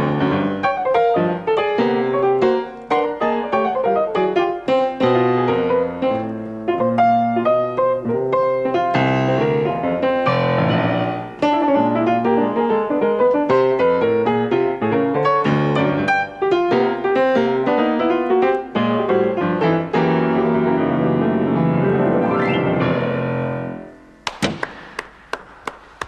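C. Bechstein piano played live in a fast, dense run of chords and rapid passages. Near the end the playing breaks off, and a few sharp knocks follow.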